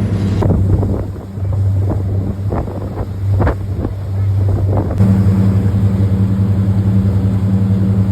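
Boat engine running steadily with a low, even hum, and several short sharp knocks over it in the first few seconds. The engine becomes louder, with a steady pulse, about five seconds in.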